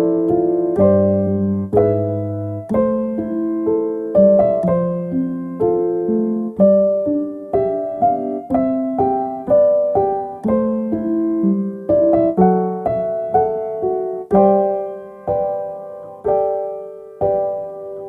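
Soft solo piano music: gentle melody over broken chords, notes struck one after another about twice a second and left to fade.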